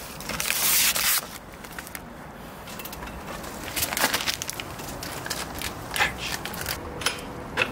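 Clear plastic wrapping crinkling as it is pulled off a new pit bike's seat, loudest for about the first second, then faint scattered rustles and clicks.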